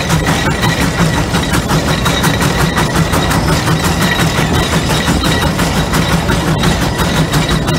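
Steam traction engine working hard, its exhaust chuffing in a rapid, even beat out of the smokestack.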